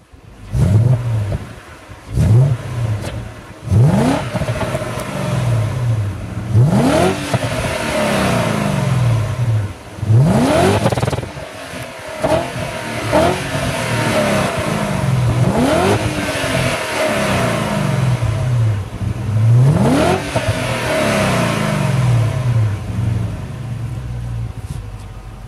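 BMW E39 535i's 3.5-litre V8 exhaust, heard close behind the tailpipes with the car standing still, revved again and again. A few quick blips come first, then longer revs that climb and fall back to a steady idle.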